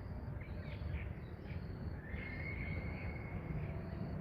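Faint bird calls over a steady low outdoor rumble, with one longer held call about halfway through.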